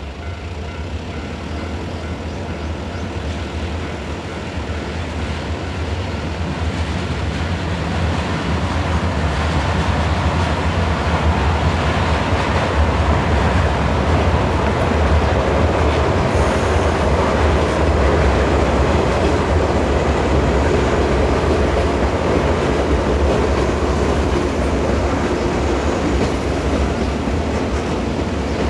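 Series 117 electric train (West Express Ginga) passing over a level crossing. Its noise builds over about ten seconds, stays loud for a long stretch, and eases near the end.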